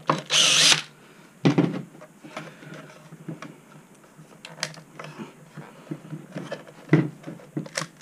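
Cordless drill-driver runs briefly, under a second, backing a screw out of the Onewheel Pint's rail. Then knocks and small clicks of the screw and board parts being handled.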